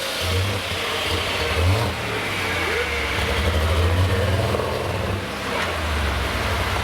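Modified farm pulling tractor's engine running, its revs rising and falling.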